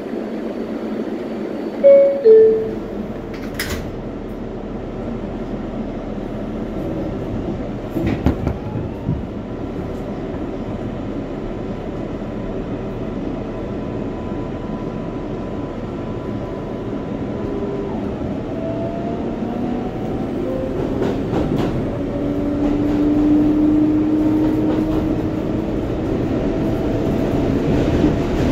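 R142A subway car's two-note descending door chime, then the train pulls out: traction motors whining in rising and falling tones over a steady rumble of wheels on rails that grows louder as it gathers speed, with a few sharp knocks.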